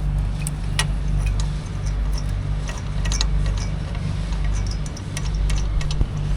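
Scattered metallic clicks and clinks of a spanner working on the exhaust bend-pipe nuts of a Royal Enfield Bullet, over a steady low engine hum.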